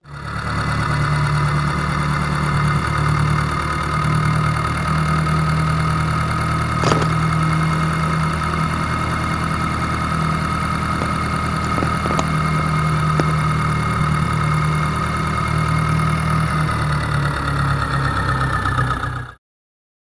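Tractor engine running steadily, with a low rumble and a constant high whine over it; it starts abruptly and cuts off suddenly near the end.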